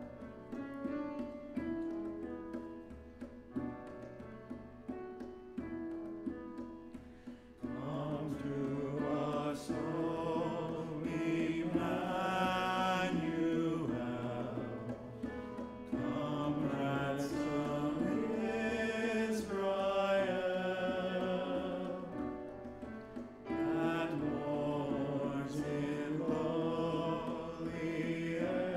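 Processional hymn with piano and instrumental accompaniment, sung by a group of voices. A short instrumental introduction plays for about the first seven seconds, then the singing comes in and carries on with the instruments.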